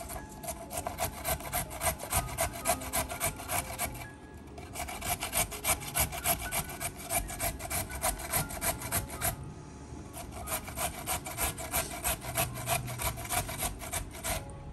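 A carrot being grated on a flat stainless steel hand grater, its tip resting on a wooden cutting board. Quick rasping strokes come about three a second, with two short pauses, about four seconds in and again near ten seconds.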